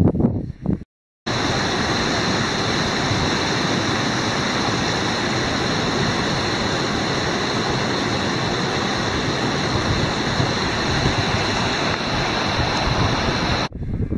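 Steady, even rushing noise, like flowing water, that begins after a brief gusty patch and a short dropout about a second in and stops abruptly just before the end.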